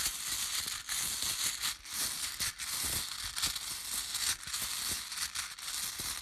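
Small letter tiles being shaken and shuffled together by hand: a continuous clattering rustle full of small clicks.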